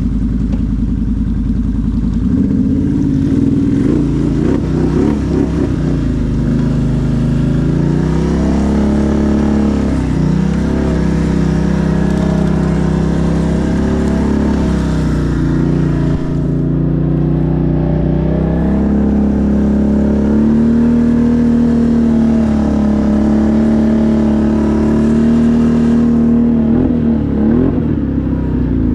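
ATV engine running under load, its pitch rising and falling as the throttle is worked. It is held steady at higher revs for several seconds past the middle, then rises and falls quickly near the end.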